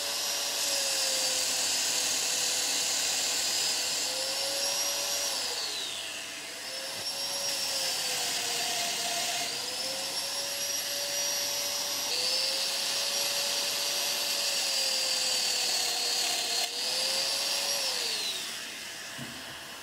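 Festool Domino joiner running and plunge-cutting mortises in hardwood rails. Its high motor whine sags each time the cutter bites into the wood and picks back up between cuts, then winds down near the end. Under it is the steady hiss of a dust extractor.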